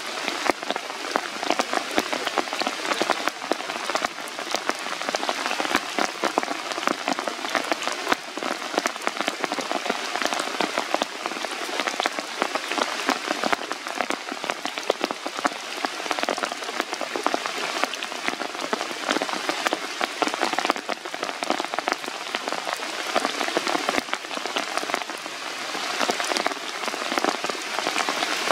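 Steady rain falling on leaves, with many sharp individual drop hits scattered throughout.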